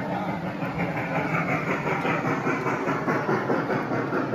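G-scale MTH Big Boy model steam locomotive running past with its train, wheels rolling on the track: a steady rushing sound that pulses several times a second.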